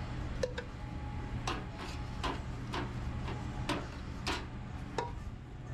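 Metal kitchen tongs clicking against each other and the steel tray as grilled pita pieces are picked up, about ten sharp clicks at an uneven pace, over a steady low hum.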